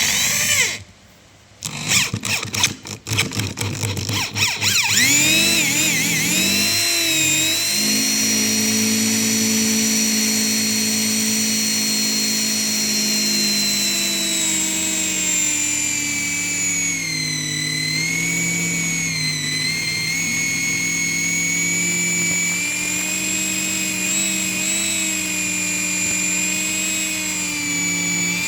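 Electric drilling machine motor switched on briefly, then started again in stutters and spinning up to a steady whine. Its pitch dips and recovers several times past the middle.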